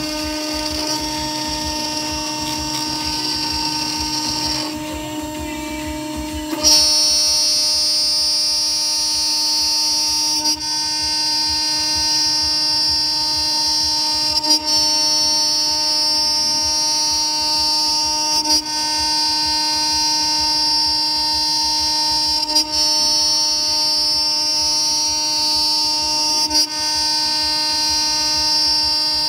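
2.2 kW, 24,000 rpm CNC router spindle milling a pocket in 20 mm aluminium plate with a small end mill: a steady high whine of spindle and cutter. The cut gets louder about seven seconds in, then dips briefly about every four seconds.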